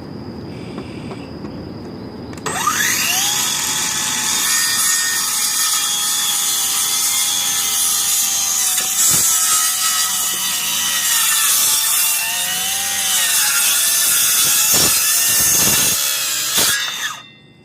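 Kobalt 24-volt cordless circular saw spinning up with a rising whine about two and a half seconds in, then cutting through boards with a loud steady whine and a few short dips in pitch as the blade bites into the wood. It stops suddenly near the end.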